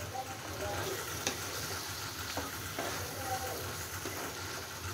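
A pan of bottle gourd and radish sabzi sizzling steadily as it is stirred with a wooden spatula, with a few light knocks of the spatula against the pan.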